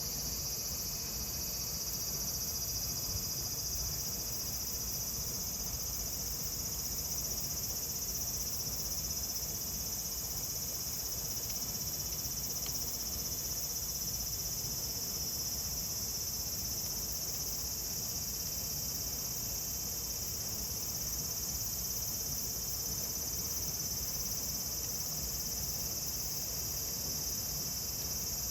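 Cicadas singing in a steady, continuous high-pitched drone.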